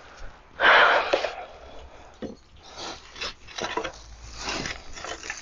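Compost being dug from a wooden bin with a garden hand tool and dropped into a plastic tub: a loud scraping rustle about a second in, then a run of shorter scrapes and rustles.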